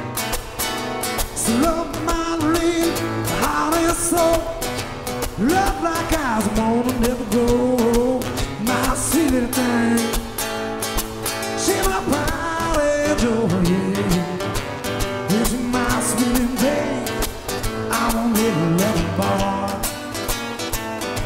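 Acoustic guitars playing with a man singing over them, the voice sliding up and down between notes.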